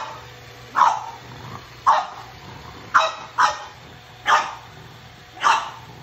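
A French bulldog barking at a running robot vacuum: about seven short, sharp barks, roughly one a second, two of them close together about three seconds in. A faint, steady low hum from the vacuum runs underneath.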